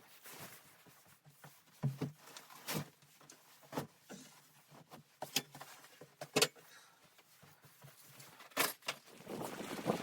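A series of separate sharp knocks and clicks, about eight of them at uneven intervals a second or so apart, over a faint steady hiss.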